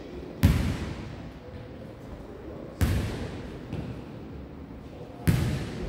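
A jokgu ball smacking three times, about two and a half seconds apart, each hit ringing on in the echo of a large gym hall.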